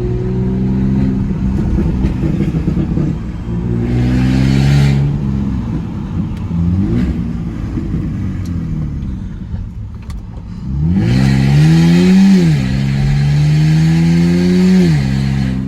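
BMW Z4's engine accelerating hard in sport mode, its revs climbing and dropping back as it runs through the gears. The hardest pull, a quick rise and fall, comes about eleven seconds in and is followed by a long steady climb. A rushing hiss rides along with the hardest pulls.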